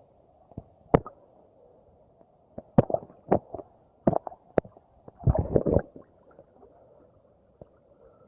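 Muffled sloshing and gurgling of seawater around a camera held at the surface by a swimmer, with sharp slaps of water every second or so and a quick run of splashes about five seconds in.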